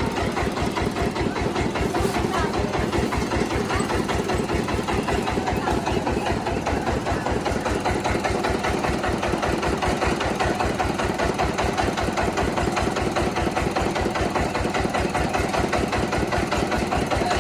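Rice milling machine running, its engine going at a steady, even rapid beat.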